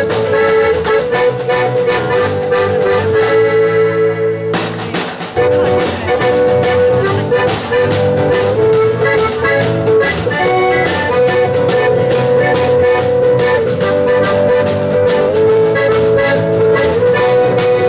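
Live acoustic band playing an instrumental intro: accordion holding chords over strummed guitars and a snare drum beat. About four seconds in, the beat briefly drops out, and the full band comes back in on a hit.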